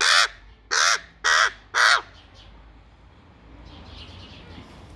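Young hand-raised crow cawing: four loud, harsh calls in quick succession over about two seconds, then quiet. It calls with its red-lined gape wide open toward bread held out by hand, begging for food.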